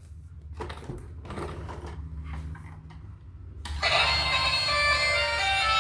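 Rustling and clicking from handling plastic, then about two-thirds of the way in a battery-powered toy vehicle suddenly starts playing its electronic tune, much louder than the handling.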